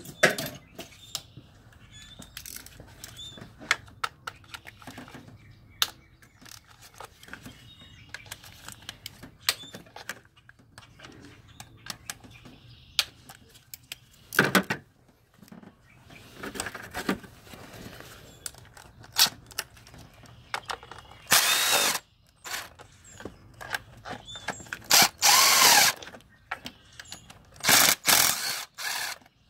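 Power tool with a 10 mm socket spinning out valve cover bolts in short bursts of about a second, the loudest three in the last third, between scattered clicks and clinks of metal tools and bolts.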